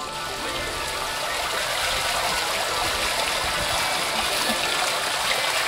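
Water from a tiered fountain splashing and trickling steadily into its stone basin.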